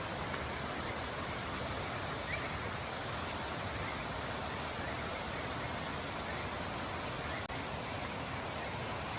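Night-time insect chorus: a constant high trill, with a shorter high chirp repeating about once a second, over a steady hiss.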